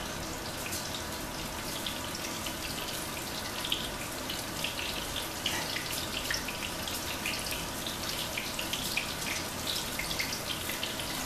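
Panko-breaded halibut pieces frying in a pan: a steady sizzle with scattered small crackles.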